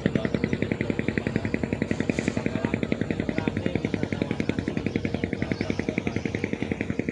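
Boat engine running steadily, with a rapid, even chugging of about ten beats a second.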